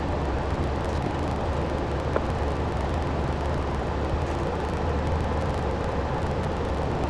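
Steady low hum and even rushing noise of running workshop machinery, unchanged throughout, with a faint click about two seconds in.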